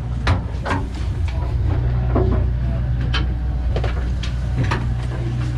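A fishing boat's engine runs with a steady low hum, under irregular scattered clicks and knocks.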